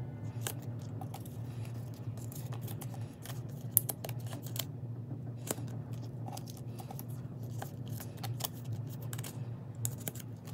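Photocards and plastic binder sleeves being handled, with irregular small clicks, crinkles and scratches of plastic and card. One sharp click, a little under four seconds in, is the loudest.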